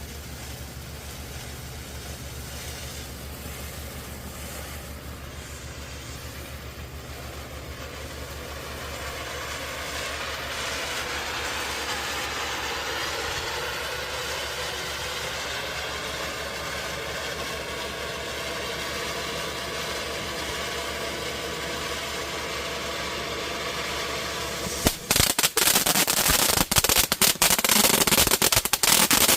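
Consumer firework fountain spraying with a steady hiss that grows louder about a third of the way in. Near the end it breaks into loud, rapid crackling pops. A low steady hum runs underneath.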